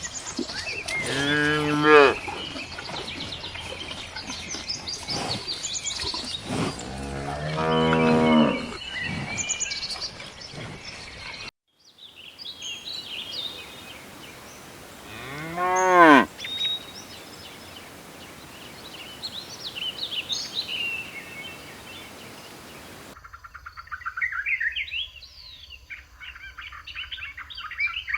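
Cows mooing three times, about a second in, around seven seconds in (the longest call) and around fifteen seconds in. Small birds chirp in between, and chirping alone fills the last few seconds.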